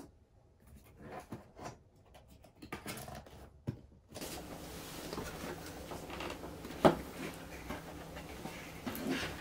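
Cardboard boxes being handled: scattered soft rustles and light taps. About four seconds in the background becomes a steadier hiss, with one sharp knock about seven seconds in and more rustling near the end.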